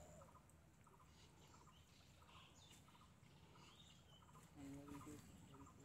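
Near silence: faint outdoor background with a few faint high chirps, and a faint short low call about four and a half seconds in.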